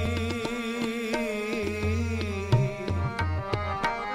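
Instrumental passage of Sikh kirtan: tabla strokes with deep, ringing bass-drum notes under a held, slightly wavering melody line.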